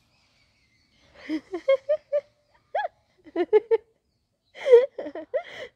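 Indian street dog making short, pitched play vocalizations, whiny yips and grunts, in three quick clusters beginning about a second in. The loudest call comes near the end.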